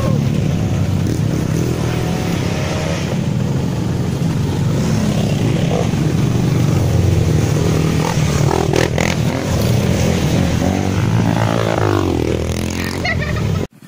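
Trail motorcycle engine running steadily, then cutting off abruptly near the end.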